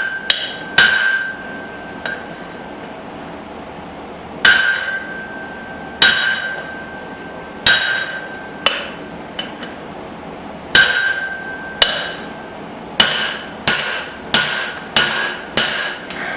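Hand hammer blows on hot steel over an anvil, driving a punch to knock out the nearly freed slug of a punched hole. There are about fifteen sharp metallic strikes, each with a short ring. They come one to two seconds apart at first, then faster, about two a second, near the end.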